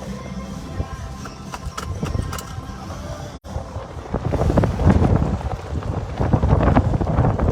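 Background music with steady tones. About three and a half seconds in it cuts out abruptly, and loud, gusty wind rumbling on the microphone takes over.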